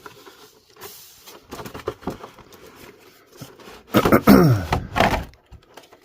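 Cardboard and plastic packaging of an action-figure box being handled and opened: scattered light knocks and clicks, then a louder stretch of rubbing and creaking about four seconds in.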